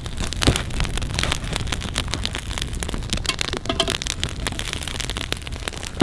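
Small stick fire crackling and popping as the freshly laid kindling catches, with a dense run of sharp irregular snaps.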